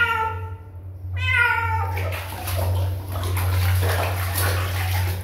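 A wet cat meowing twice, long falling meows, while it is bathed in a plastic basin of water. After about two seconds the meows give way to water splashing and sloshing as hands scrub the cat.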